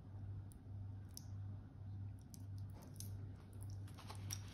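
Faint clicks and light rattles of a stainless steel watch bracelet being handled and fitted around a watch pillow, sparse at first and busier in the last couple of seconds, over a steady low hum.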